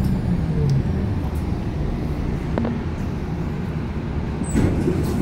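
Steady low rumble inside a light rail tram stopped at a station, with a short click midway and a brief sharper clatter about four and a half seconds in.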